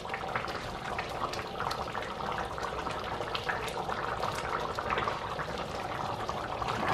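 Thick okra stew boiling in a stainless steel pot: a steady bubbling with many small pops as large bubbles burst at the surface.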